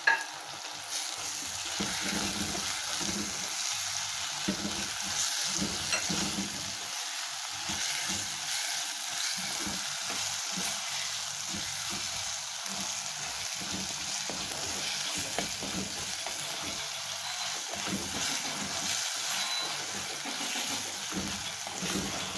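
Drumstick pieces, shallots, tomato and green chillies sizzling steadily in hot oil in a black pan while being stirred and turned with a slotted spatula: the sauté stage of the curry.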